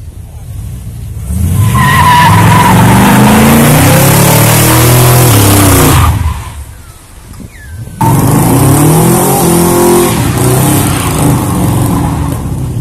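Chevrolet Corvette C3's V8 revving hard through a burnout, its rear tyres spinning and squealing on the asphalt, the engine pitch rising and falling. The sound drops away about six seconds in and comes back loud suddenly two seconds later, then eases off near the end as the car pulls away.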